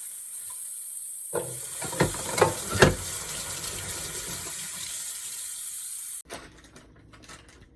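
Kitchen tap running steadily into a sink, with a few knocks and clinks of dishes about a second and a half to three seconds in; the running water cuts off suddenly near the end.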